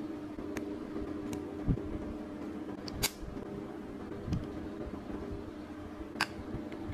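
Small plastic LOZ mini building bricks clicking as they are pressed together and handled, a few separate sharp clicks, the loudest about three seconds in, over a steady low hum.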